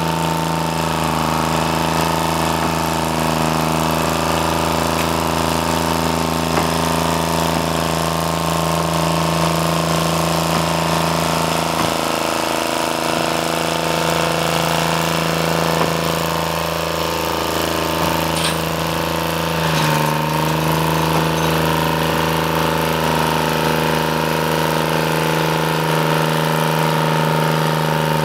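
Diesel engine running steadily, its pitch stepping up slightly about twenty seconds in.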